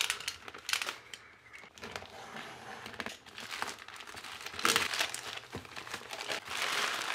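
Plastic courier mailer bag being torn open and crinkled by hand, in irregular crackling rustles, with a louder burst of crackling about two-thirds of the way through.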